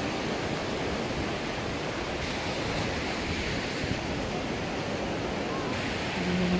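Sea surf washing onto a sandy beach, a steady rush of breaking waves, with wind buffeting the microphone.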